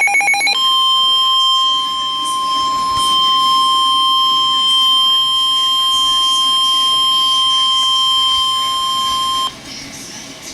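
NOAA Weather Radio warning alarm tone: a single steady high tone near 1050 Hz held for about nine seconds, signalling that an emergency warning is about to be read. It comes right after the last rapid buzzing burst of the digital SAME alert header and cuts off sharply, leaving faint radio hiss near the end.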